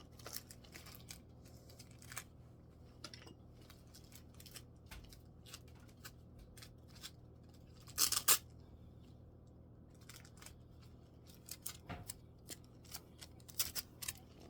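Scattered clicks and rustles of plastic trimmer parts and packaging being handled during assembly, with one louder, brief rustle about eight seconds in and a run of quick clicks near the end.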